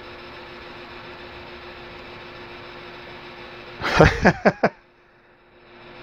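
Steady fan hum and hiss with a faint steady tone, from a 3D printer and its fan-cooled ATX power supply running while the printer preheats. About four seconds in, a short vocal sound breaks in. Then the hum drops out for about a second and comes back.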